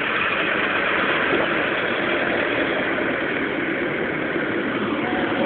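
Steady noise of a vehicle's engine and road, running evenly with no distinct events.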